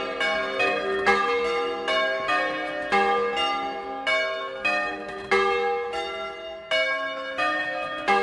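Six bronze bells cast by Francesco De Poli in 1994, tuned to a major scale from A♭3 to F4, rung in the Bolognese style ('doppio') from a wooden frame. The bells strike one after another about twice a second, and their notes overlap and ring on.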